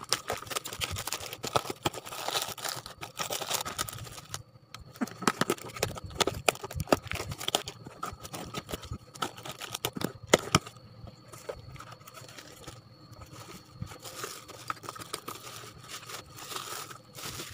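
A parcel being opened by hand: a plastic courier bag torn and crinkled, packing tape on a cardboard box slit and pulled with a hobby knife, then bubble wrap rustling. Irregular crackles and rips throughout, a few sharper ones around the middle.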